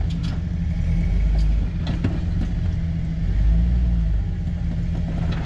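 Jeep Wrangler TJ's engine running at low revs in low-range crawl, a steady low rumble that rises and eases slightly with the throttle, with a few light knocks as it works over the boulders.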